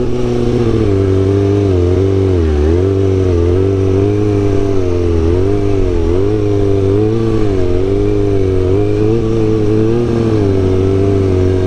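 Kawasaki ZX-6R 636 inline-four engine running at steady mid revs while the rider works the throttle. The pitch sways gently up and down about once a second, with a brief drop in revs about two and a half seconds in.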